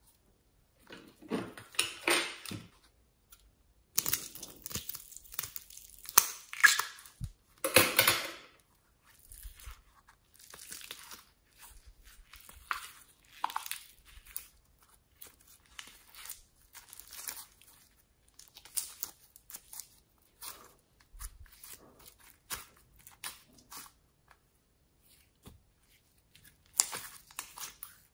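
Hands squeezing a mesh stress ball and pressing the slime inside it out through the mesh, then squishing slime in a glass bowl. The sounds come in irregular bursts, loudest in the first eight seconds and softer and scattered after that.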